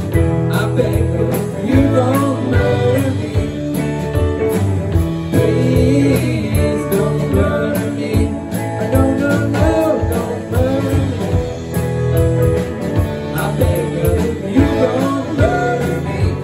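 Live rock band playing: electric guitars, bass guitar, drum kit and electric piano.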